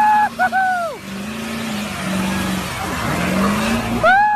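Pickup truck doing a burnout: a loud high squeal that rises, holds and falls in the first second and starts again near the end, with the engine revving underneath in between.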